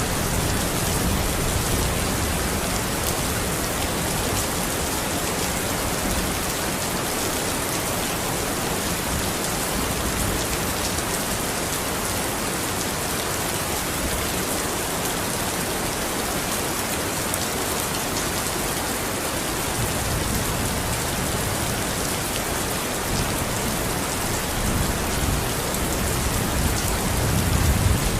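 Steady rain falling: a dense, even hiss of drops. A low rumble of thunder swells faintly about two-thirds of the way through and starts building again near the end.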